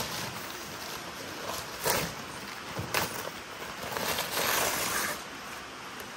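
Packing paper crinkling and rustling in irregular bursts as steering parts are unwrapped by hand, the longest stretch about two thirds of the way through.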